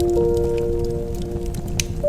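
Slow, calm music of long-held notes over a fireplace fire crackling with scattered sharp pops and a low rumble.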